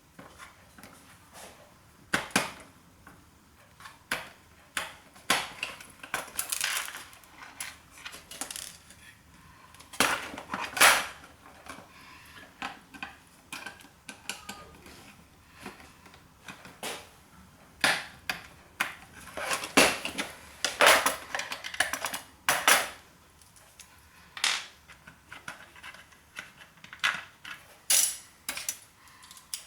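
Irregular light metallic clicks and clatter from a floppy disk drive being dismantled by hand: screwdriver, screws and sheet-metal parts knocking and clinking, in scattered strokes with busier patches about a third of the way in and again past the middle.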